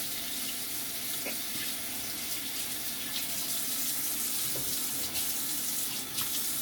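Kitchen faucet running steadily into the sink while chicken wings are rinsed in a bowl, with a few light knocks.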